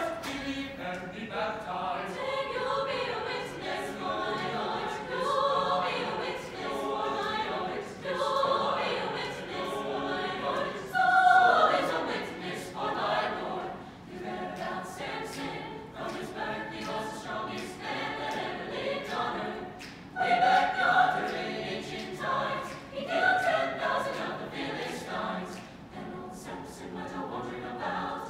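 Mixed-voice chamber choir singing in parts, unaccompanied, with louder swells about eleven seconds in and again around twenty seconds.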